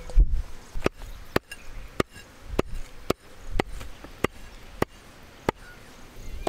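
Heavy cleaver chopping pieces of goat intestine on a wooden log block: a steady run of sharp chops, about three every two seconds.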